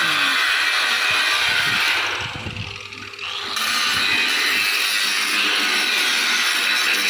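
A steady harsh power-tool noise, like cutting or grinding. It drops away about two seconds in and comes back about a second and a half later.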